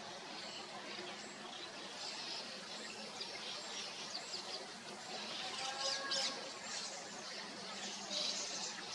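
Several small birds chirping and calling over a steady outdoor background hiss, with many short, high chirps and whistles throughout.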